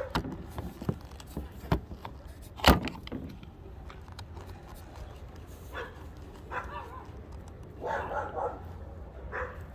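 Sharp clicks and knocks from prying at the old fog light assembly and its bracket, the loudest about three seconds in. Several short yelp-like calls follow in the second half.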